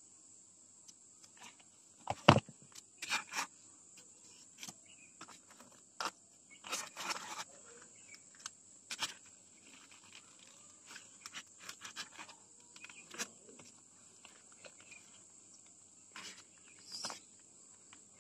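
Handling noises as styrofoam blocks and a hot glue gun are worked by hand: scattered clicks, knocks and short crackly scrapes, the loudest a sharp knock about two seconds in. A steady high-pitched whine runs underneath.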